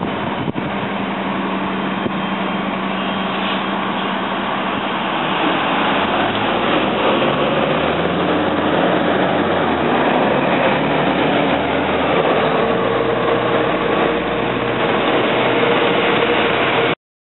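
SEPTA transit bus engine running. It is steady at first, then grows louder from about five seconds in as the bus pulls away and passes, over street traffic noise. The sound cuts off abruptly near the end.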